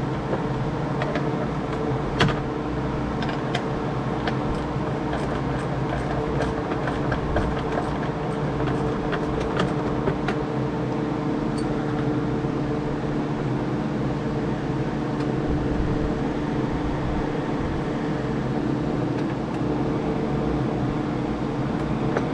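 Steady mechanical hum with a couple of held tones, over which come scattered light clicks and knocks, the sharpest about two seconds in.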